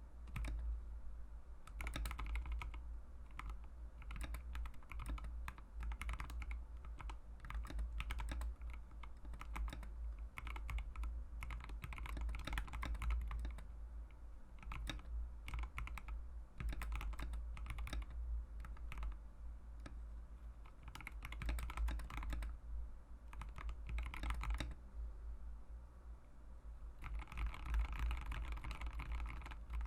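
Mechanical keyboard with Mauve linear switches, not yet retuned, being typed on steadily: a dense run of keystrokes in bursts with short pauses. A steady low hum sits underneath.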